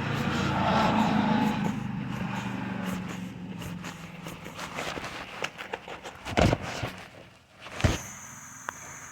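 A motor vehicle's engine running and fading away over the first few seconds, followed by a series of light clicks and two sharp knocks.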